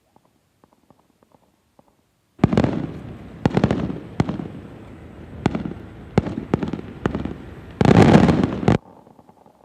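Fireworks display: after a couple of quiet seconds, aerial shells go off in a rapid run of sharp bangs and crackle, ending in a dense, loud closing volley that cuts off suddenly. This is the finale that ends the show.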